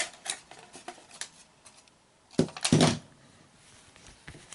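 Small clicks and taps of a die-cast metal toy pickup truck being handled and picked up by hand, with one louder short noise about two and a half seconds in.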